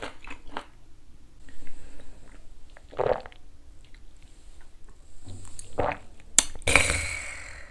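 A person eating and drinking: chewing sounds, then a shot of soju drunk. Near the end there is a sharp click, then a short breathy hiss.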